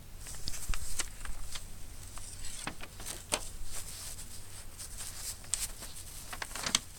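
Sheets of paper being handled: irregular crisp rustles and small crackles as the letter pages are moved and turned.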